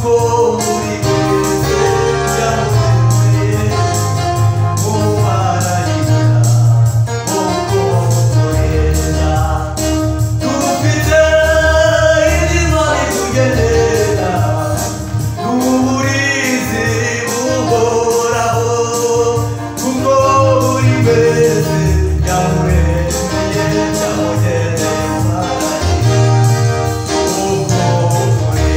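Young men singing a gospel worship song to electronic keyboard accompaniment, with a steady bass line under the voices.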